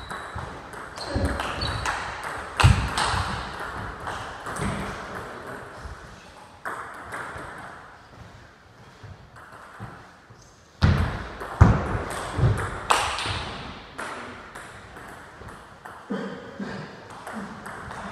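Table tennis rally: the celluloid-type ball clicking back and forth between the players' rubber bats and the table, many times in an uneven rhythm. A few louder thumps stand out, one about three seconds in and several between about eleven and thirteen seconds.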